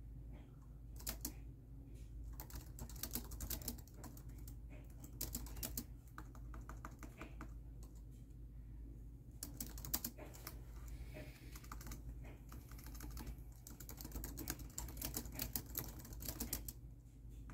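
Typing on a laptop keyboard: quick runs of keystrokes in bursts of a second or two, broken by short pauses, over a low steady hum.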